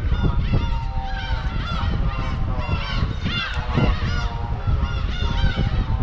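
A flock of seagulls calling over and over, many short calls overlapping one another, over a steady low rumble.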